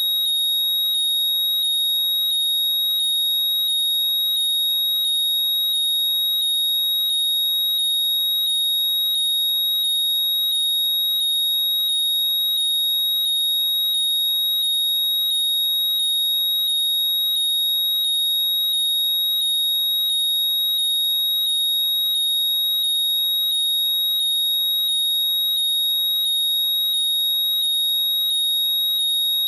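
AirPods' Find My locating sound: a loud, high steady tone with a short gliding chirp repeating evenly, a little faster than once a second.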